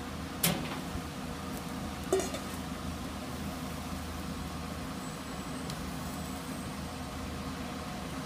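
Two sharp metallic clinks, about half a second and two seconds in, from steel tandoor skewers knocking, over a steady rushing noise from the tandoor kitchen.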